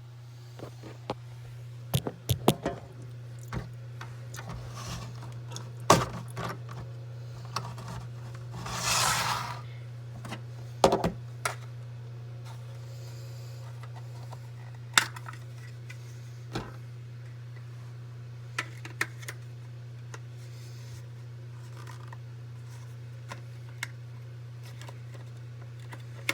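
Scattered small plastic clicks and knocks of a smoke detector and its battery being handled, the battery taken out and fitted back in, with a brief scraping rustle about nine seconds in, over a steady low hum.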